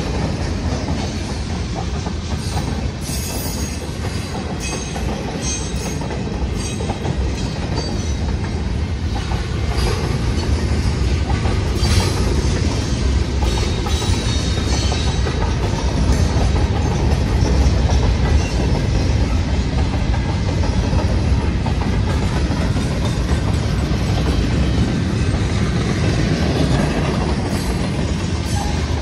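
Freight cars rolling past at close range on steel wheels: a steady low rumble with irregular clacking as the wheels cross rail joints, growing a little louder partway through.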